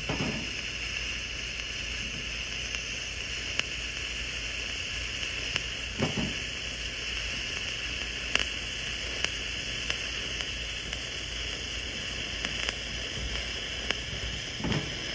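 TIG welding arc running with a steady hiss, broken by a few faint clicks.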